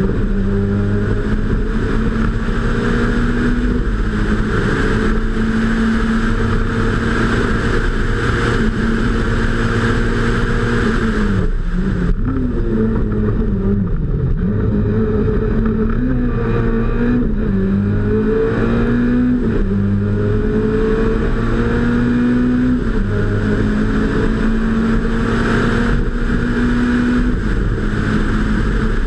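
Peugeot 106 Kit Car rally engine heard from on board, held at high revs under full throttle. About twelve seconds in the driver lifts off and the revs fall, then climb and drop several times through gear changes in the bends before holding high again.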